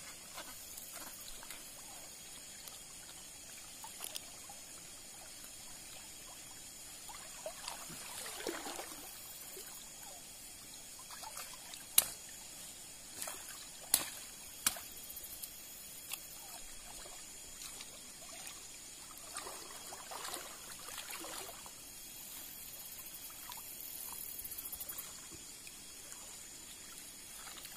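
Water trickling and sloshing as someone wades and handles branches in shallow water, with soft swishes now and then. Three sharp knocks come about halfway through.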